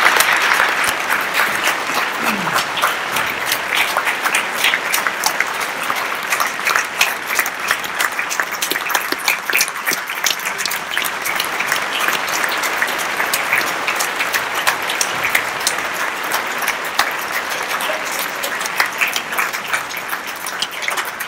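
Audience applause: many people clapping together without a break, loudest at the very start.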